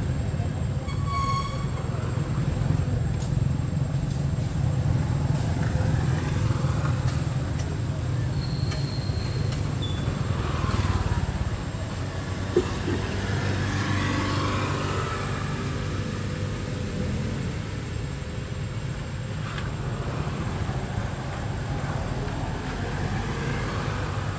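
A steady low rumble, with a short pitched call about a second in and a brief high whistle-like tone near the middle.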